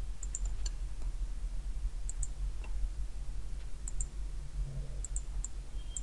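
Computer mouse button clicks, mostly in quick pairs a second or two apart, over a low steady hum.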